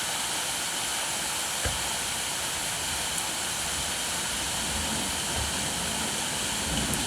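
Steady rain falling, an even hiss, with a single sharp tick about a second and a half in and a low rumble coming up near the end.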